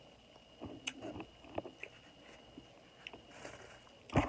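A person chewing a spoonful of food close to the microphone: soft wet mouth smacks and clicks scattered through, with one sharper, louder click just before the end.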